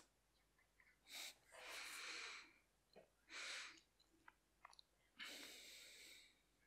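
Near silence: room tone with four faint breaths close to a microphone and a couple of tiny clicks.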